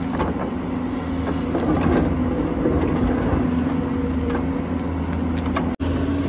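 Excavator diesel engine running steadily while its bucket scrapes and drops crushed stone and soil, with scattered clatter of stones. The sound cuts out for an instant near the end.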